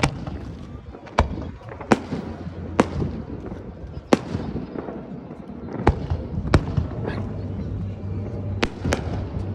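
Fireworks bursting overhead: about nine sharp bangs at irregular intervals, some close together, over a steady background din.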